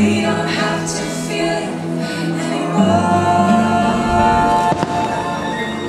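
Fireworks show soundtrack music with singing and sustained held notes. The live sound of the fireworks is not on the track.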